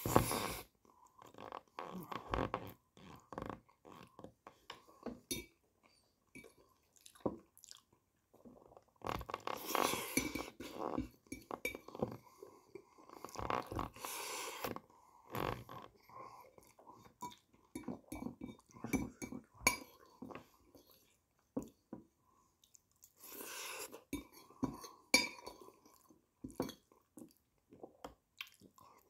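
A man eating rice in tomato sauce with a spoon: chewing and mouth sounds close to the microphone, with clinks of the spoon against the plate. The sounds come in irregular clusters, with busier stretches about ten, fourteen and twenty-four seconds in.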